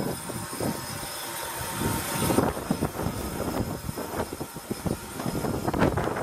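South African Railways Class NG G16 Beyer-Garratt steam locomotive standing in steam: a steady hiss of escaping steam that cuts off sharply about two and a half seconds in, over a low, uneven rumble.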